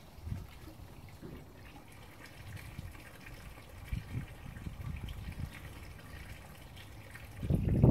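Homemade water ram pump being worked by hand: water spurts and splashes from its waste valve into a tub, with irregular low thuds. A louder low thud comes near the end.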